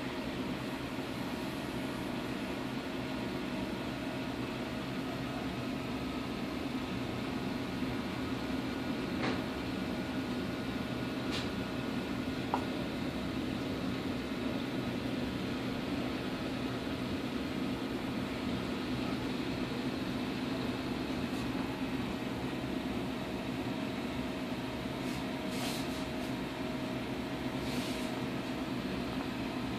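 Steady low hum of a reef aquarium's pumps and filtration, with a few faint clicks scattered through it.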